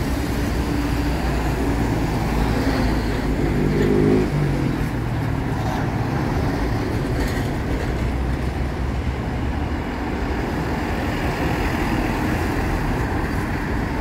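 City traffic on an avenue with urban buses passing, engines running. About four seconds in, one engine revs up, rising in pitch, before settling back into the steady traffic rumble.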